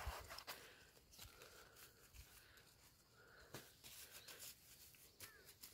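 Faint scraping and crumbling of damp soil as a hand tool digs around a radish root in the bed, with a few small scattered clicks and knocks.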